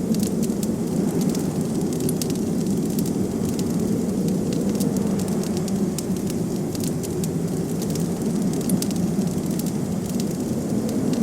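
Blizzard ambience: a steady low rush of wind, with a fireplace crackling over it in many small, sharp, irregular pops.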